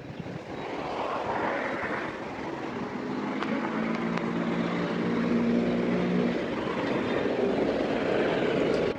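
A distant engine droning past, its steady low hum clearest for a few seconds in the middle, over a rushing outdoor background noise.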